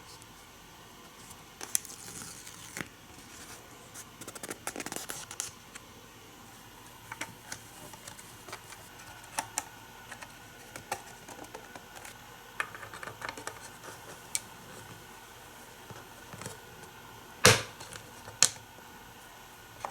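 Plastic toy track pieces being handled: scattered clicks and taps with short bursts of rustling, and two sharper clacks near the end.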